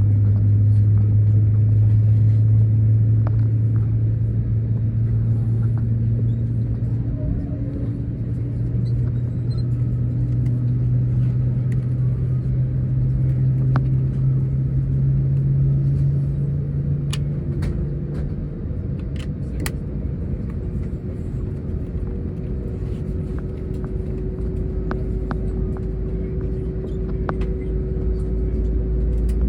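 Cabin noise of an Airbus A321 on the ground: a steady low rumble under a strong low hum that slowly rises in pitch and fades away after about 18 seconds. A steadier, higher hum takes over for the last ten seconds, with a few light clicks in between.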